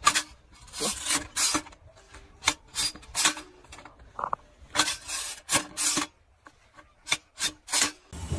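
Black plastic mulch crinkling and a hand-held seedling transplanter jabbing through it into the soil: a string of short, irregular rasping rustles, about one or two a second, with quiet gaps between.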